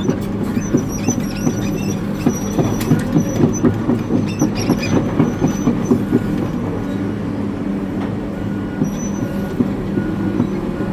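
Hitachi 890 excavator's diesel engine running steadily, with a quick, uneven run of metal clanks and faint high squeaks over the first six seconds or so that then dies down.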